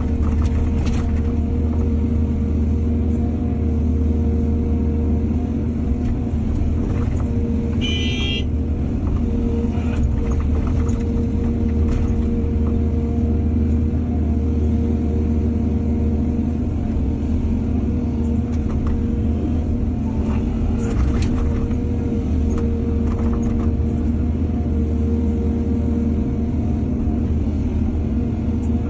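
Excavator's diesel engine running steadily under load, with scattered knocks and a brief high-pitched squeal about eight seconds in.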